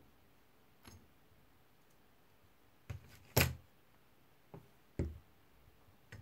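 Scattered metal knocks and clicks from a Sachs Torpedo three-speed coaster-brake hub being turned over in the hands and set down, about six in all, the loudest a sharp knock about three and a half seconds in.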